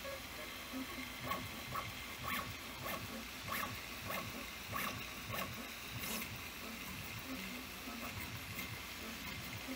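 3D printer running: a steady motor hum with irregular short ticks and brief chirps as the print head moves.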